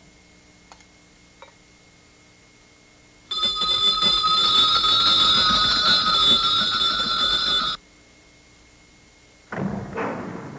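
A row of brass servants' bells on coiled springs jangling loudly for about four seconds, then stopping abruptly. Before them come two faint clicks; near the end come two short sounds falling in pitch.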